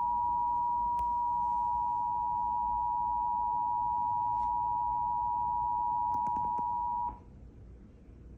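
Emergency Alert System attention signal: the standard two-tone alert, two steady tones sounded together, cutting off sharply about seven seconds in. It marks a required weekly test of the alert system.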